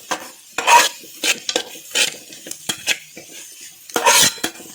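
A cooking utensil scraping and knocking against a frying pan as chicken, scrambled egg and vegetables are stirred together, in irregular strokes, loudest about a second in and again near the end.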